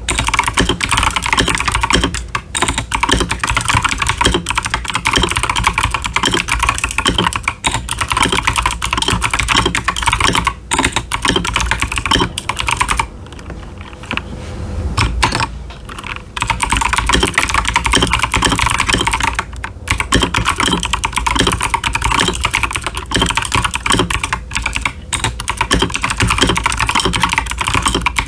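Fast, continuous typing on an Akko 5075s mechanical keyboard with TKC Blackberry clicky switches and doubleshot PBT ASA-profile keycaps: a dense stream of sharp key clicks that eases off briefly about halfway through, then picks back up.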